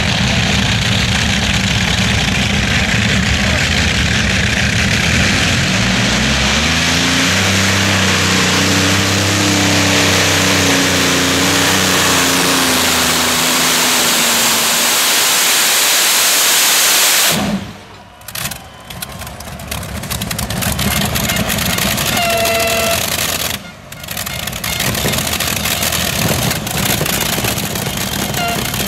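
Multi-engine modified pulling tractor's supercharged V8 engines running loud at full throttle under load, the engine note climbing about six seconds in, holding, then sagging toward fifteen seconds. About seventeen seconds in the sound cuts off abruptly, and lower, noisier engine sound follows.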